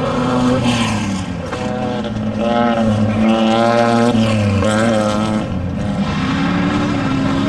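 Off-road race vehicle engines running hard, the engine note dropping, then climbing and holding high, dropping again and climbing once more near the end as the throttle is worked.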